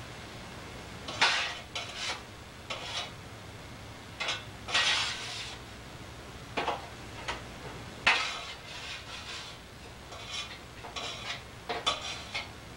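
Spatula scraping freshly baked cookies off a cookie sheet and setting them on a plate: a dozen or so short, irregular scrapes and clicks, with a couple of longer scrapes about five and eight seconds in.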